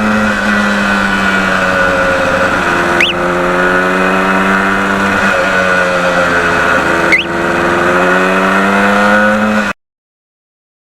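1977 Yamaha RD400's two-stroke twin engine running under way, with two brief dips in pitch and level about three and seven seconds in. The sound cuts off suddenly near the end.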